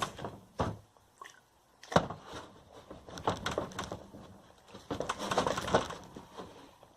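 Slightly sticky slime being mixed in a pot: irregular clicks, knocks and squishing sounds, with a sharp knock about two seconds in and a busier patch of mixing near the end.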